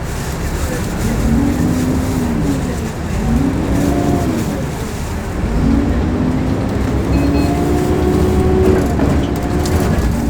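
KMB bus accelerating with a strange pitched whine over the engine. The whine rises and falls three times, then levels off and holds steady near the end.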